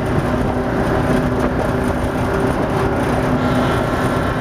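Boat engine running steadily under way, a constant drone over the wash of the waves and wind on the microphone.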